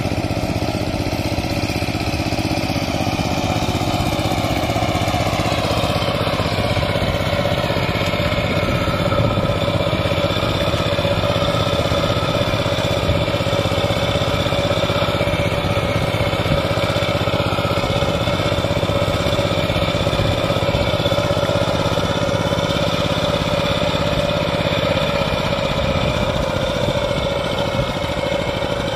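Two-wheel hand tractor's single-cylinder diesel engine running steadily under way, its pitch shifting slightly a few seconds in.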